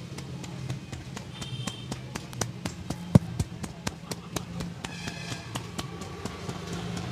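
A barber's hands slapping and tapping on a head in quick percussive strokes during a head massage, several a second, with one much louder slap about three seconds in.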